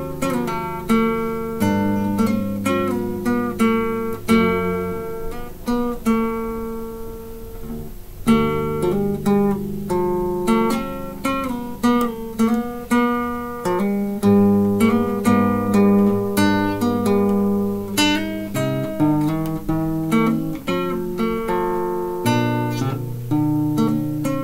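Solo classical acoustic guitar playing chords, the notes plucked one after another and left ringing into each other.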